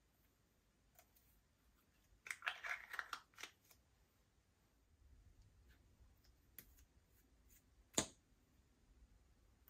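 Quiet handling of small plastic makeup containers and tools over a glass plate: a short burst of crackling clicks about two to three seconds in, and one sharp click about eight seconds in as the cap comes off a liquid lipstick bottle.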